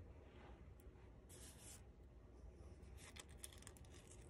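Near silence, with faint rustles and a few light ticks of a paper flower's petals being handled and pressed onto its wire stem.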